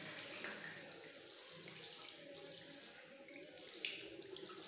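Water running from a tap into a washbasin and splashing over hands being rinsed under the stream, briefly louder a little past three and a half seconds in.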